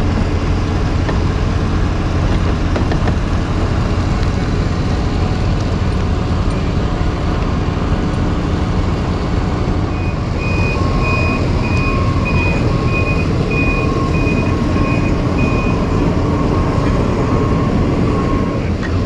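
Heavy diesel engine of construction equipment running steadily. About ten seconds in, a reversing alarm starts beeping about twice a second and goes on for some six seconds.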